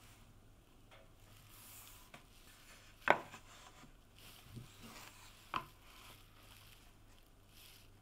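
Plywood pieces being set down and shifted on a wooden workbench: a sharp wooden knock about three seconds in and a second one about two and a half seconds later, with light rubbing and tapping between, over a faint low hum.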